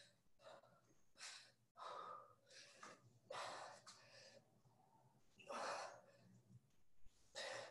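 A person breathing hard during exercise, with about eight faint, irregular exhales and gasps.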